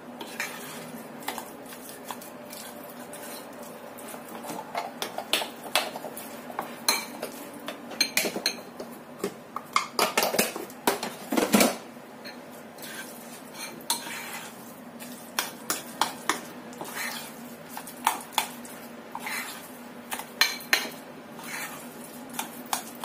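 A metal spoon stirring a thick paste of minced chicken and beef in a ceramic bowl, mixing in cornstarch. Irregular clinks and scrapes of the spoon against the bowl.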